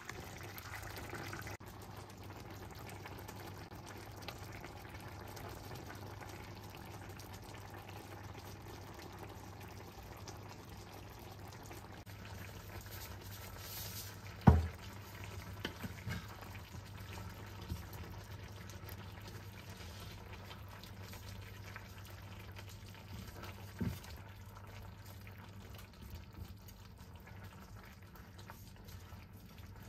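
Coconut-milk shrimp curry simmering in a stainless steel pan, a steady low bubbling. About halfway through there is one sharp knock, followed by a few lighter knocks.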